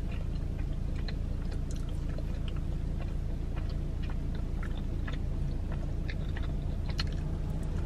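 A person chewing food with the mouth closed: soft, scattered mouth clicks and small wet chewing sounds, over a steady low hum inside a car.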